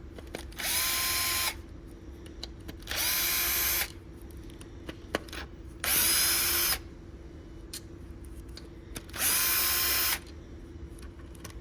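Power drill-driver spinning in four short bursts, each under a second, with a whine that rises at the start of each burst: backing out the screws of an engine's upper cam cover.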